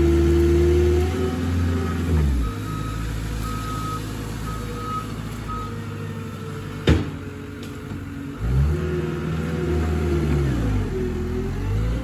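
A loader's engine working, its pitch dropping and rising again a couple of times as it is throttled up and down. A repeating backup beeper sounds from about a second in for several seconds. One sharp crack comes about seven seconds in.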